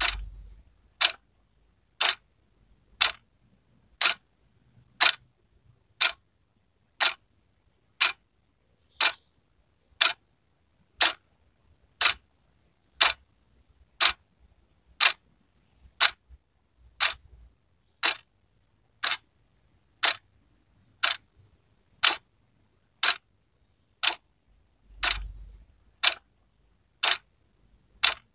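Wall clock ticking steadily, one sharp tick each second.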